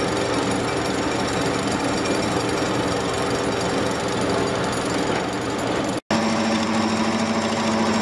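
Hydraulic pile hammer driving a steel sheet pile into the ground: a loud, steady, dense mechanical rattle. It cuts out for an instant about six seconds in and resumes with a steadier drone.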